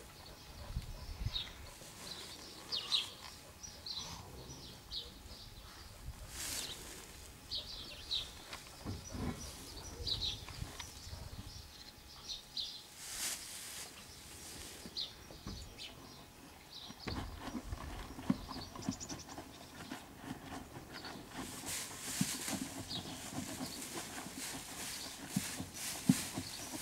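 Small birds chirping in short, scattered calls, over soft rustling of straw bedding and a few sharp knocks as a mare and her newborn foal shift about.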